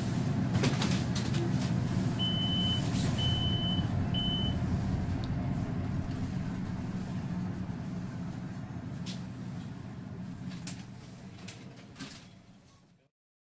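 Westinghouse elevator car travelling, with a steady low rumble of ride noise that slowly dies down. Three short high beeps sound about two to four seconds in, and the sound cuts away just before the end.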